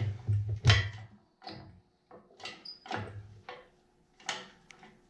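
Irregular metal knocks and clunks from work to free the cast-iron transmission top cover of a Farmall H tractor: several in the first second, then scattered single knocks, with the loudest near the start.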